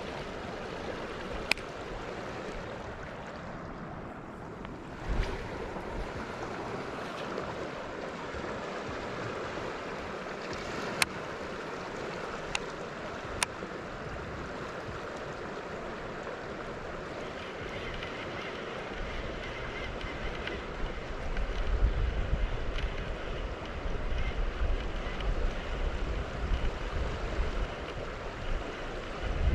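Steady outdoor rush of wind and moving water by a canal, with a few sharp clicks in the first half. From a little past the middle, gusts of wind buffet the microphone with low rumbling.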